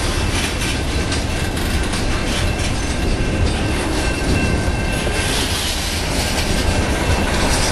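Freight train of coal hopper cars rolling past at steady speed: a continuous rumble of steel wheels on rail, with a thin steady wheel squeal and faint clicks of wheels over rail joints.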